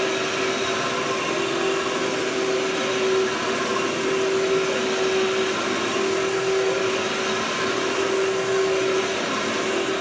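Workhorse upright vacuum cleaner running steadily while it is pushed over carpet: an even rushing hiss with one constant hum tone underneath.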